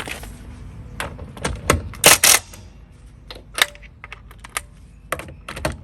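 Irregular metallic clicks and clanks of a wrench working a car wheel's lug nuts as they are tightened, with a few louder clanks about two seconds in.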